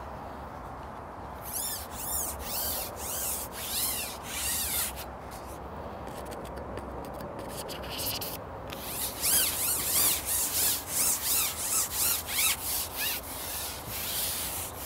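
Carbon fishing pole being shipped out and back through the hands, its sections rubbing as they slide in repeated strokes, about two or three a second. There are two runs of strokes, one starting about a second and a half in and a louder one from about nine seconds in.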